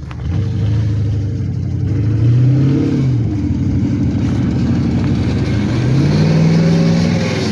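Porsche Cayenne 955's 4.5-litre V8 revved twice: the engine note climbs and drops back about three seconds in, then climbs and falls again near the end.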